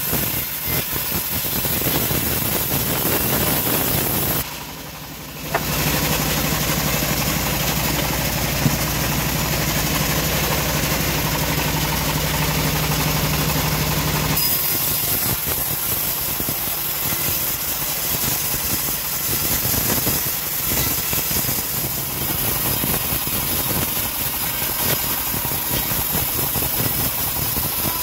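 Homemade band sawmill running, its blade ripping teak timber into boards: a loud, steady machine drone with the cutting noise over it, briefly quieter about five seconds in.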